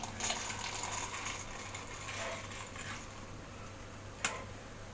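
Roasted, skinned peanuts being tipped by hand from a wire strainer into a steel mixer jar, a soft scattered rattle of nuts dropping, with one sharp click about four seconds in.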